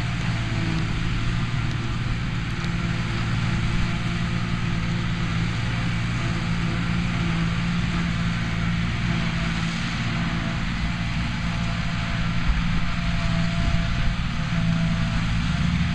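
New Holland tractor and a trailed JF forage harvester working under load, chopping grass and blowing it into a trailer running alongside. The sound is a steady engine drone with a constant hiss over it.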